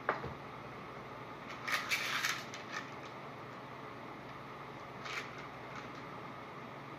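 A hot glue gun set down on the table with a knock, then a strand of beads clicking and rattling against the tray as it is pressed into place, in a cluster about two seconds in and a shorter one near five seconds. Steady background hiss underneath.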